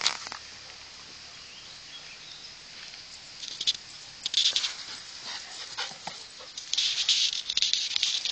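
Dogs at play: a faint whimper, then short noisy bursts of scuffling about three and a half seconds in and again near the end.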